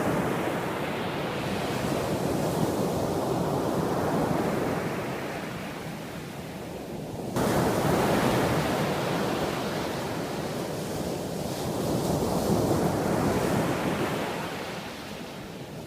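Black Sea surf washing onto the beach, the noise swelling and fading as waves come in, with wind on the microphone. The level jumps abruptly a little past halfway.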